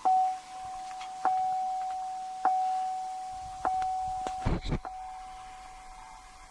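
2008 Chevy Tahoe's dashboard warning chime, set off by the ignition key being turned to run with the engine off, dinging four times about a second apart, each ding ringing on and fading. A pair of dull thumps comes about four and a half seconds in.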